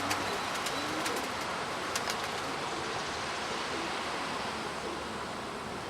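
Gusty wind rushing steadily over the microphone outdoors, with a few faint sharp clicks in the first two seconds.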